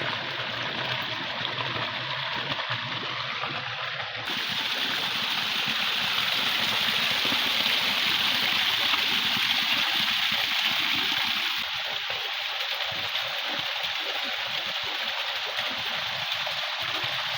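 Waterfall on a river: water falling and rushing in a steady hiss, louder from about four seconds in until about twelve seconds.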